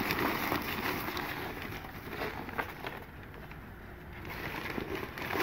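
Crumpled old newspaper and brown wrapping paper rustling and crinkling as hands dig through a cardboard box and lift out a paper-wrapped jar, quieter for a moment midway.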